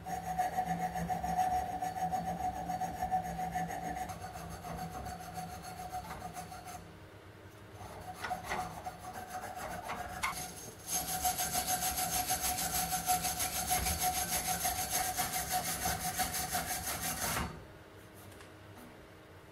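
A thin steel blade scraping rust and dirt out of the threads of a corroded mortar barrel's joint, in quick back-and-forth strokes. The scraping eases off about seven seconds in, then comes back louder and faster before cutting off sharply about two seconds before the end.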